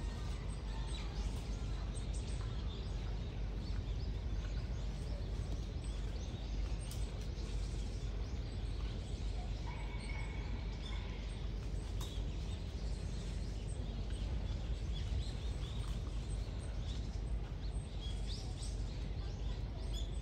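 Steady low background rumble with faint bird chirps scattered through it, and one brief whistled note about ten seconds in.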